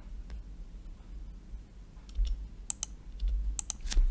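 Computer keyboard being typed on: a few scattered keystrokes with pauses between them, over a low steady hum.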